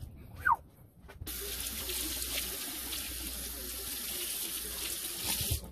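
A brief falling chirp about half a second in, then a kitchen faucet running in a steady hiss that cuts off abruptly near the end.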